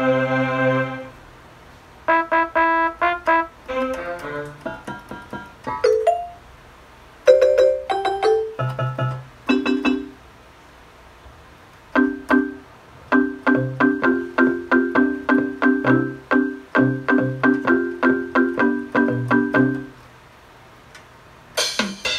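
Casio CTK-240 portable keyboard played in short phrases of notes and chords in a piano-like tone, with pauses between them. Through the middle a steady repeated chord pattern plays, and just before the end a brighter passage with sharp drum-like clicks begins.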